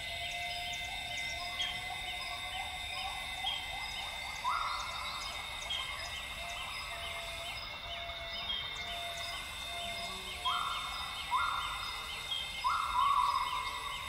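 Northern grey gibbons (Hylobates funereus) singing in a series of rising whoops: one about four seconds in, then a run of them coming close together in the last few seconds. Under them runs a lower repeated note, with steady high tones and short repeated chirps behind.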